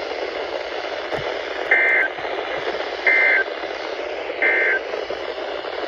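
Weather radio SAME end-of-message data bursts: three short, buzzy two-pitch chirps about a second and a half apart, over steady radio hiss. They mark the end of the severe thunderstorm warning broadcast.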